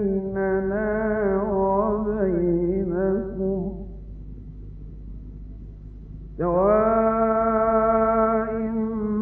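A male Quran reciter chanting in the melodic tajweed style: ornamented notes that waver in pitch for about three and a half seconds, a pause of about two seconds, then a long, steady held note.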